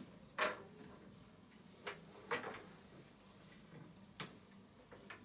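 Five short clicks and knocks, the first the loudest, from handling and plugging in HDMI cable connectors and an angle HDMI adapter.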